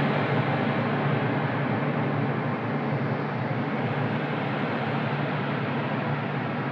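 Electronic ambient drone music: a dense, steady wash of noise over a low, unchanging hum, easing down slightly in loudness.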